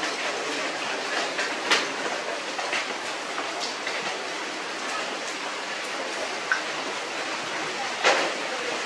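Steady rain falling, an even hiss with a few sharp taps now and then, the loudest near the end.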